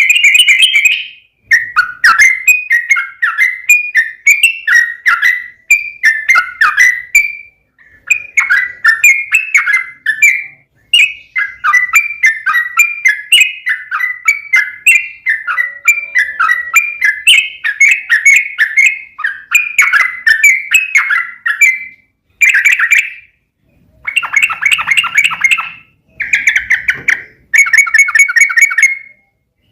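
Yellow-vented bulbul (trucukan) singing long runs of quick, bubbly, warbling notes, one phrase after another with short pauses between them.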